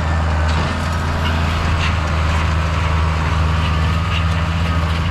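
Heavy diesel engine running steadily at a constant speed, a low even hum.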